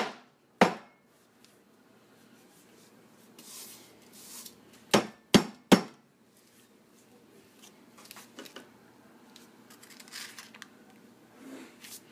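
Sharp knocks on a wooden soap loaf mold as the hardened soap is worked loose to unmold it: two knocks near the start and three quick ones about five seconds in, with softer rustling in between.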